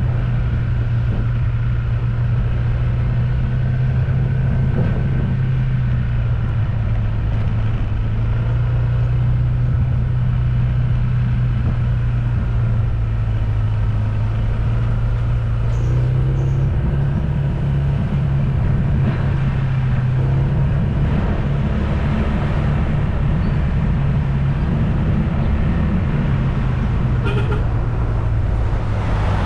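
A moving motor vehicle's engine and road noise: a steady low drone that steps up slightly in pitch about halfway through.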